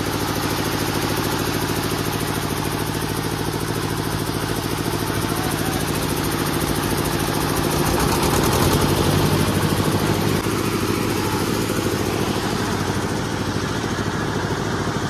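Diesel generator set's engine running steadily with a fast, even chugging; around the middle it grows louder for about two seconds, then settles back.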